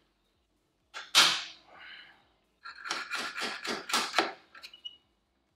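Metal clinking of a hand tool against drum brake shoe springs and backing plate: a sharp clack about a second in, then a quick run of about five clicks a second with a faint metallic ring, near the end a short ping.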